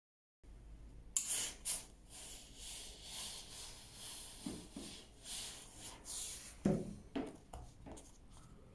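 Silk fabric rustling under the hands and an iron sliding over it on a cardboard board, with a few dull knocks, the loudest about two-thirds in.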